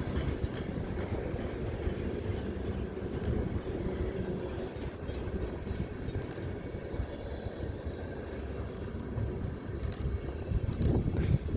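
Train running past with a steady low rumble, growing louder briefly near the end.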